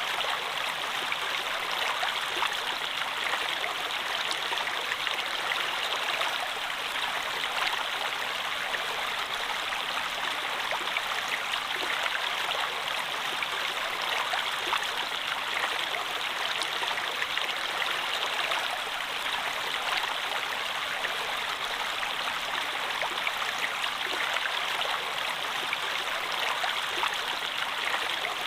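Stream of water flowing steadily: a continuous rushing splash flecked with many small drips and splashes.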